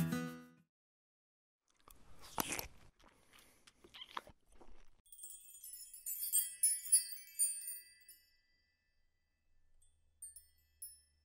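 Acoustic guitar music fades out at the very start. Then comes a logo sound effect: a few short sweeping swishes, followed by a cluster of high, twinkling chime tones that die away.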